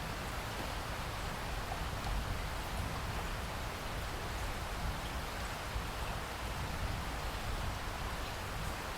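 Steady rain falling: an even, unbroken hiss with a low rumble underneath and no distinct thunderclap.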